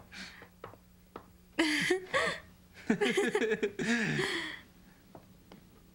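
Two short stretches of speech, with a few faint clicks and knocks around them.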